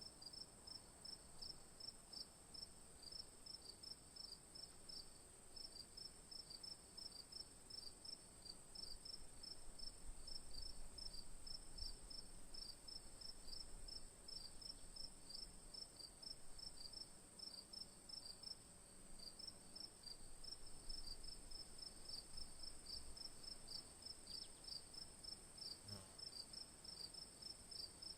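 Crickets chirping: a steady run of short high chirps, about three to four a second, over a continuous higher-pitched trill. The whole is faint.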